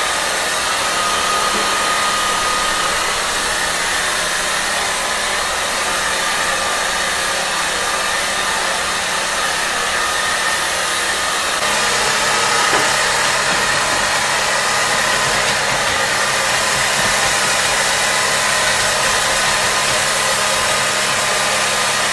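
Hair dryer blowing steadily, drying a cat after washing. About halfway through the sound changes slightly and grows a little louder, with a low hum added.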